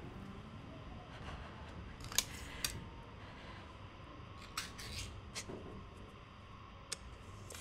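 Ring-pull tin can being opened by hand: a run of sharp metallic clicks and snaps as the tab is lifted and the lid peeled back, the loudest about two seconds in, over a low steady background hum.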